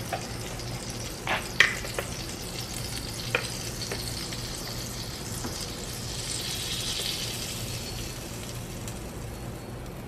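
A few sharp clinks of a wire whisk in a plastic mixing bowl, then waffle batter sizzling as it is poured onto the hot plate of a mini waffle maker. The hiss swells about six seconds in.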